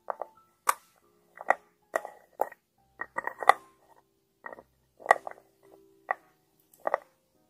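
Fingers and nails tapping and clicking on a thick glass cosmetic cream jar and its lid: about a dozen sharp, irregular taps, several followed by a short ringing tone from the glass, with a quick cluster of taps about three seconds in.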